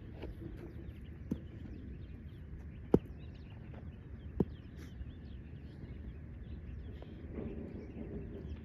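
Outdoor background with birds chirping, broken by three sharp knocks, the loudest about three seconds in.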